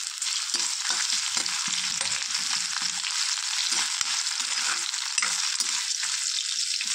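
Potato pieces and green chillies sizzling in hot oil in a kadhai, with a steady hiss. A metal slotted spatula scrapes and turns them against the pan in short repeated strokes.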